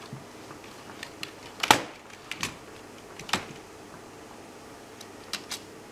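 A few scattered key presses on a computer keyboard, separate sharp clicks with the loudest about two seconds in, as keys are tried to restart a new PC and reach its BIOS.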